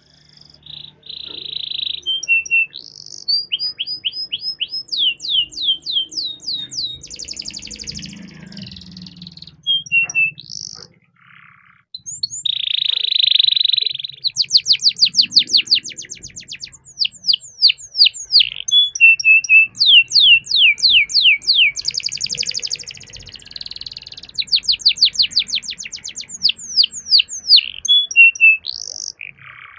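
Domestic canary singing a long song: fast runs of rapidly repeated, downward-sweeping whistled notes alternating with buzzy rolled trills, with a brief pause about eleven seconds in.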